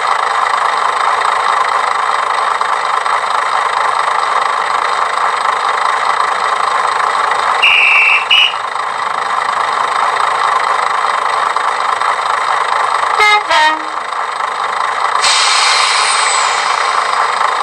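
Hornby TXS sound decoder in a model Class 121 diesel railcar playing a steady diesel engine running sound through the model's small speaker, thin with no bass. A short horn blast sounds about eight seconds in, and a hiss starts about fifteen seconds in.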